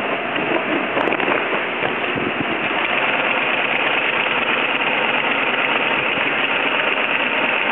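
Industrial sewing machine used for sail repair, its motor running steadily while heavy sailcloth is fed under the needle.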